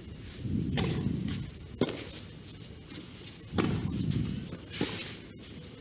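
Tennis ball struck by rackets in a baseline rally: four sharp pops about one to two seconds apart, over a low murmur of stadium noise.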